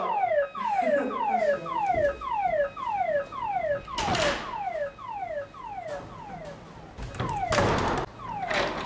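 Fire alarm sounding for a fire drill: a falling electronic tone repeating just under twice a second, with a couple of short noisy bursts.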